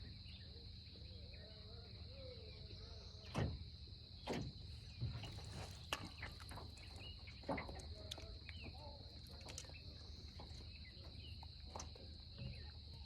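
Steady high insect chirring in the background, with a handful of short knocks and rustles from handling gear and the fish a few seconds in.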